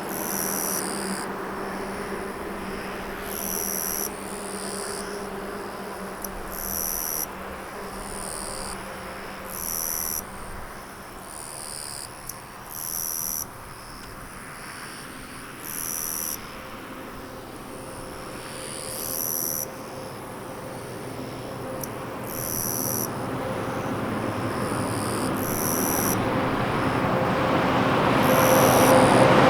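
A short high-pitched call, about a second long, repeats roughly every three seconds, over a steady low hum. In the second half a road vehicle approaches and grows steadily louder, becoming the loudest sound by the end.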